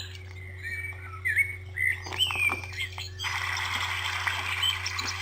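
A bird chirping in short rising and falling notes over a steady low hum. About three seconds in, a steady hiss of running water starts suddenly.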